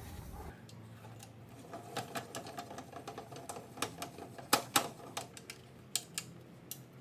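Bench drill press table being moved on its column and locked with its lever: a run of light metal clicks and knocks, two louder knocks about halfway through.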